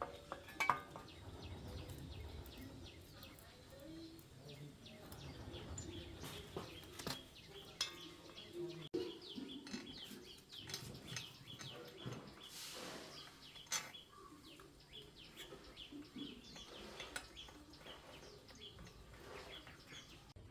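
Scattered light metallic clinks and taps of tools and small engine parts being handled during an engine repair.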